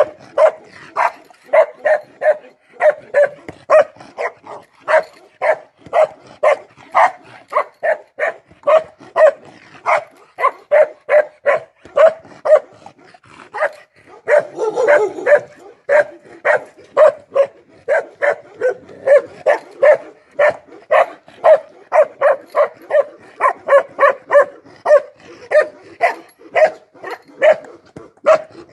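Bakerwali (Kashmiri sheepdog) barking steadily, about two barks a second, with a brief break and one rougher, drawn-out bark about halfway through.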